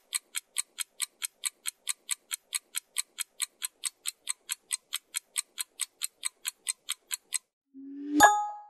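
Clock-ticking timer sound effect, about five quick, even ticks a second, counting down a pause for discussion. The ticking stops, and a short swell leads into a loud bell-like ding that rings on, marking time up as the answer appears.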